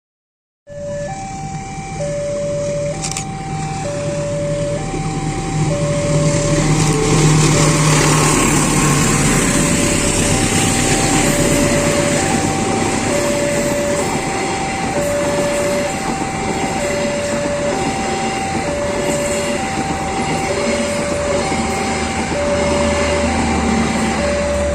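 Railway level-crossing alarm beeping steadily in two alternating tones, about a beep every half second, over the rumble and rail noise of a passing train, loudest in the middle.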